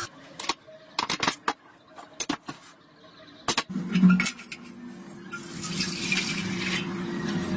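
Sharp clicks and knocks of parts being handled, then a steel tray set down on a cast-iron stove grate with a low thud about four seconds in, followed by liquid poured from a plastic jug into the tray as a steady hiss for a second or two.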